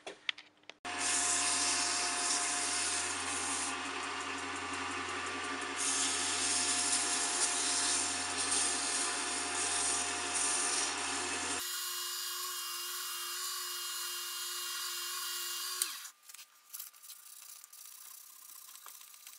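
Wood lathe running while sandpaper is held against the spinning plum-wood blank, a steady motor hum under loud sanding noise, knocking down grain raised by wetting. About twelve seconds in the sound changes abruptly to a thinner, higher hiss with a steady tone that dips and stops a few seconds later, followed by quiet handling clicks.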